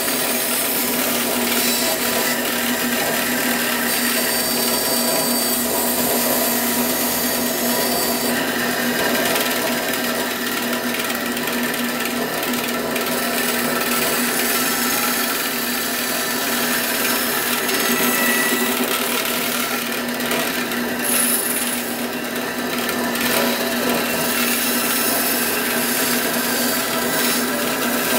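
Bandsaw running and cutting, a steady motor hum under the continuous noise of the blade working through the stock.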